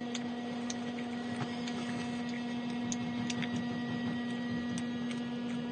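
A steady electrical hum with a few faint scattered clicks. The hum starts suddenly.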